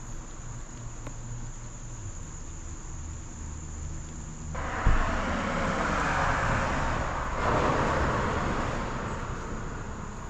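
Steady high-pitched insect chirring, crickets, over a low motor-vehicle hum. About halfway in, a rushing noise starts suddenly with a thump, stays for a few seconds and then fades away.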